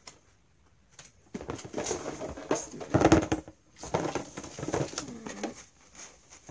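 Homemade toy vending machine being worked by hand: its turning knob and insides rattle and knock in an irregular series of clatters, loudest about three seconds in, without a prize dropping out.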